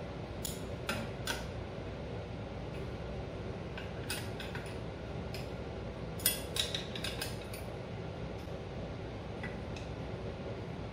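Metal hand tools (Allen wrench, pliers and spanner) clinking against the lathe's steel headstock and motor mount bolts while the belt tension is set: a few sharp clinks in the first second and a half, one around four seconds, and a cluster of clinks around six to seven seconds in. A steady low hum lies underneath throughout.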